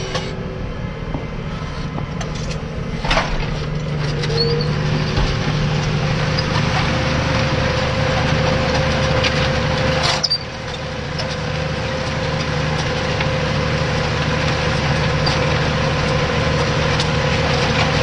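Diesel tractor engine running steadily under load while pulling a reversible plough, heard from inside the cab as a steady hum and drone. A couple of brief knocks, about three seconds and about ten seconds in.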